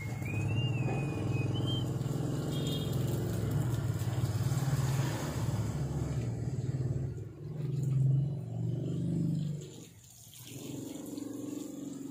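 A motor running with a steady low hum, swelling about eight seconds in and dropping away briefly near ten seconds.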